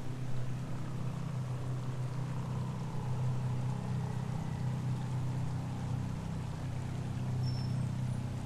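Ambient soundscape: a steady low drone under an even, rushing, water-like noise, with faint held tones in the middle.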